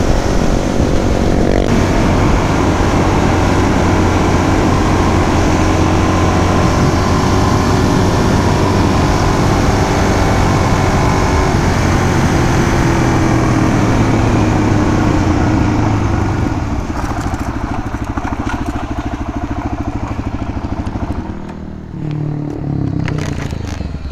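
Suzuki DR-Z400 supermoto's single-cylinder four-stroke engine running at road speed under heavy wind noise on the helmet microphone. About two-thirds through, the wind noise falls away as the bike slows; the engine drops off briefly near the end, then picks up again.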